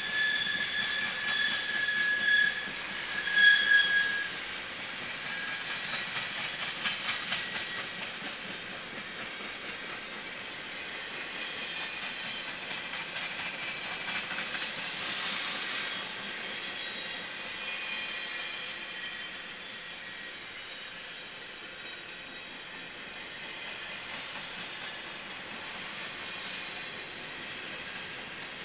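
Freight train of flatcars loaded with trash containers rolling steadily past, its wheels clattering on the rails. A high, steady wheel squeal sounds for the first few seconds, loudest about three and a half seconds in, and fainter squeals come and go later.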